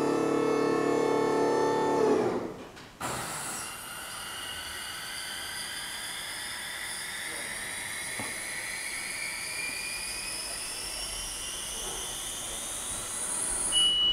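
Haulotte Compact 8 electric scissor lift: its hydraulic pump motor runs steadily for about two seconds and stops. Then the platform lowers with a steady hiss and a whine that slowly rises in pitch for about ten seconds, cutting off near the end with a short beep.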